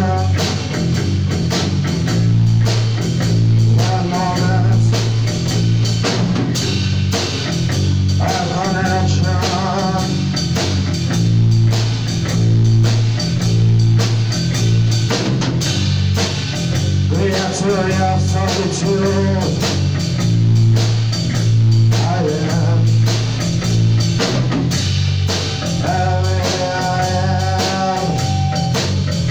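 Post-punk band playing live: electric guitars, bass guitar and drum kit over a steady repeating bass line, with sung phrases coming in and out and a long held sung note near the end.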